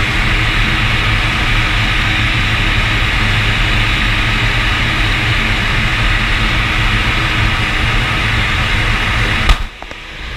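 Air Tractor AT-802's turboprop engine and propeller running steadily at high power, heard inside the cockpit with loud airflow noise. About nine and a half seconds in comes a single sharp crack, after which the sound drops sharply and builds back.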